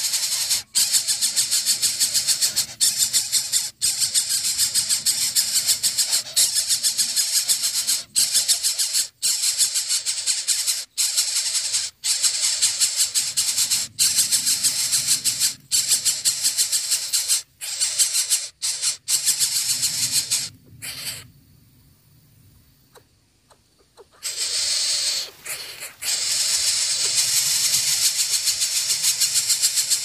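Coucal nestlings giving a continuous, rapidly pulsing rasping hiss as they beg with open bills. The sound breaks off for about three seconds a little past two-thirds of the way through, then resumes.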